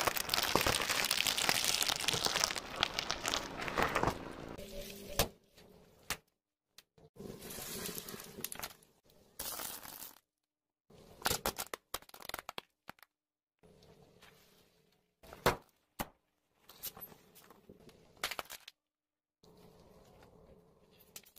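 A car tyre rolling over and crushing small objects, such as plastic spiky balls, carrot sticks and toothpaste tubes, in a run of short clips. There is a long stretch of dense crackling and crunching at first, then shorter bursts of sharp cracks and snaps, each cut off abruptly by a brief silence.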